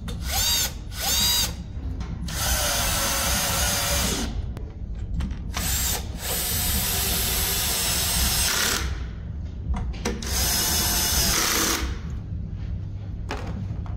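Cordless drill/driver driving screws into a metal battery cabinet panel: two short trigger blips with a rising whine, then three runs of about two seconds each as the screws are driven in.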